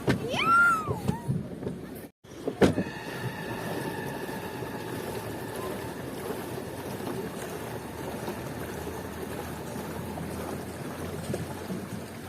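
Steady outdoor rushing noise, opening with a loud high squeal that rises and falls within the first second. A brief cut-out comes about two seconds in, followed by a click.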